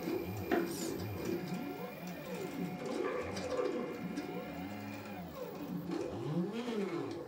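Stepper motors of a 3D-printed robot arm whining as the arm moves. The pitch rises and falls in overlapping arcs as each motor speeds up and slows down. There is a click about half a second in.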